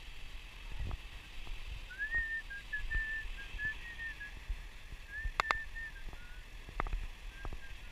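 A thin, high whistle held at nearly one pitch with short breaks, from about two seconds in until near the end, over a low rumble of wind and surf. A pair of sharp clicks sounds about five and a half seconds in.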